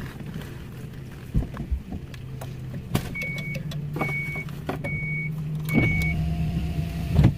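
Van engine running at idle, heard from inside the cabin, a steady low hum. In the middle come four short high beeps about a second apart, like a dashboard warning chime. A few light clicks are followed by a sharp knock near the end.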